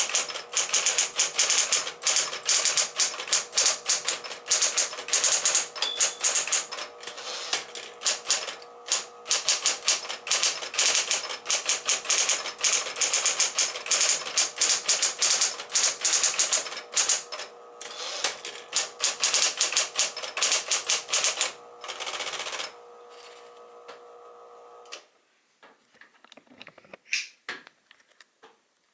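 Smith-Corona Coronet Electric 12 electric typewriter typed on quickly, a rapid clatter of key strikes over the steady hum of its motor. Near the end the typing stops, a louder whir sounds for about a second, the motor hums alone for a couple of seconds and then stops, followed by a few faint clicks.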